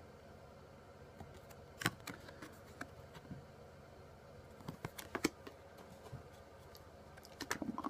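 Trading cards being handled: scattered light clicks and taps as cards are slid and laid down, over a faint steady hum.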